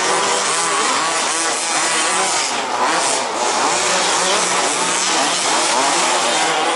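Several 1/5-scale petrol RC buggies racing, their small two-stroke engines buzzing and revving up and down over one another without a break.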